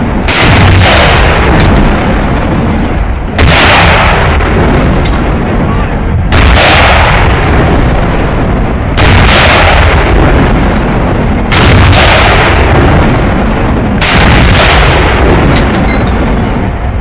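Artillery guns firing: six heavy blasts, one every two and a half to three seconds, each trailing into a long low rumble that runs on into the next.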